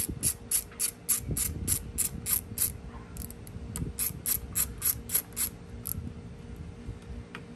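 Hand socket ratchet clicking rapidly as it backs off the nut holding the starter's ground wires, about four clicks a second. It breaks off briefly about three seconds in, resumes, and stops about six seconds in.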